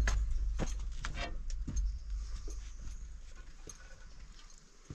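Several sharp knocks and clicks at irregular spacing, over a low rumble that fades away in the first few seconds.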